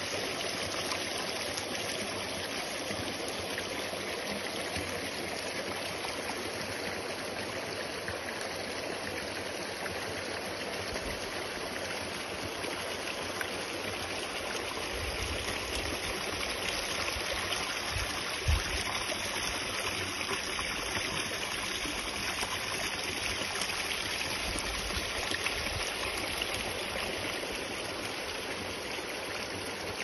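Shallow stream running steadily over rock, a constant rush of water. A single low thump a little past the middle.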